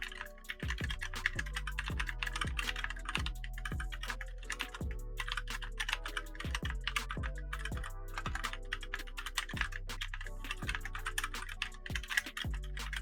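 Fast, continuous typing on a TMKB GK63 60% mechanical keyboard with red linear Outemu switches, a dense stream of keystrokes, over background music.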